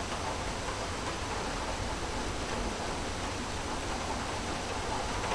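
Steady rain during a summer thunderstorm: an even rushing hiss with a low rumble underneath.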